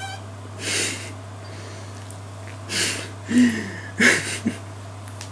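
A woman's breathy, snorting laughter in a few short bursts, over a steady low electrical hum.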